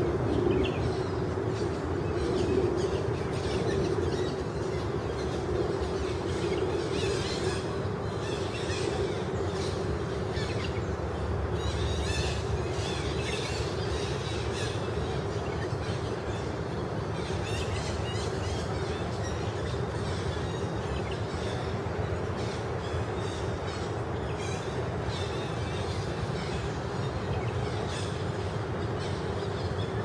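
Birds chirping and calling over and over, over a steady low hum.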